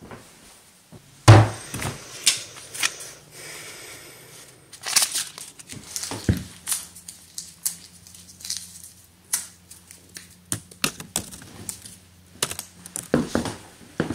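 Irregular clicks, taps and rustling handling noises, with one heavy thump about a second in and a low steady hum under the middle part.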